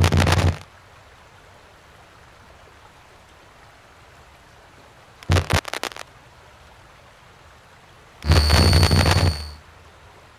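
Three blast-like spell sound effects: one at the start lasting about a second, a short one about five seconds in, and a longer one near the end with a steady high ring through it.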